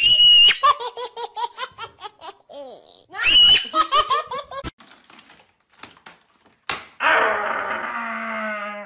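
High-pitched human laughter: a shrill squeal followed by a quick run of giggles, twice. About seven seconds in, a different, denser and steadier sound with a low hum under it takes over.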